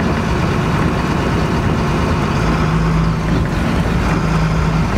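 Steady driving noise heard inside a tow truck's cab as it ploughs through deep floodwater: engine running and tyres churning water. A steady low hum joins about halfway through.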